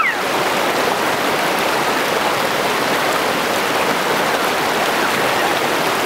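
Waterfall and river water rushing: a steady, unbroken hiss of falling and flowing water.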